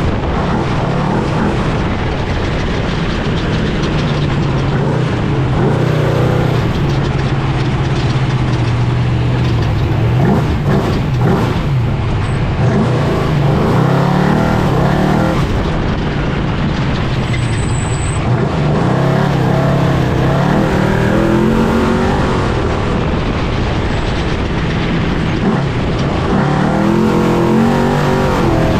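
Trophy truck's race engine running hard at speed, its pitch climbing and dropping again and again as it revs through gears and lifts, over a constant wash of tyre and chassis noise heard from inside the cab. A run of knocks and jolts comes about ten seconds in.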